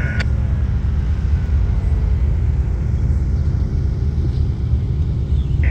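Diesel locomotive engines running with a steady low rumble.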